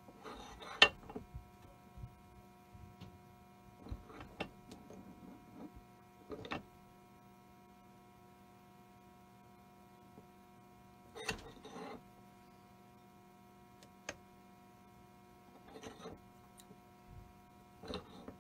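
Small hand arbor press pressing a drive wheel onto the axle of a 1930s Lionel toy-train motor: scattered metallic clicks and scrapes a few seconds apart, the sharpest about a second in. A steady electrical hum runs underneath.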